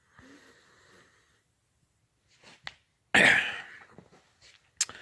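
A person sneezing once, loudly, about three seconds in, with a few faint clicks around it.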